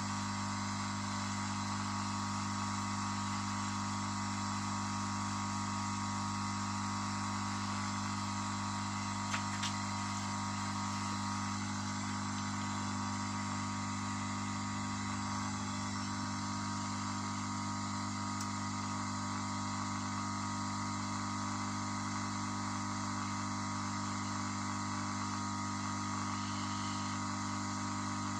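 Steady electrical mains hum with a constant hiss and a higher steady whine, from mains-powered bench equipment; two faint clicks about nine and a half seconds in.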